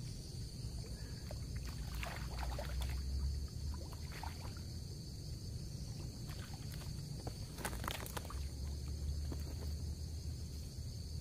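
A hooked snakehead splashing and thrashing at the water's surface as it is played toward the bank, in several short sharp splashes over a steady low rumble.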